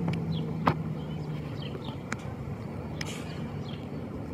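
Garbage truck engine running steadily as the truck drives away, its low hum slowly fading.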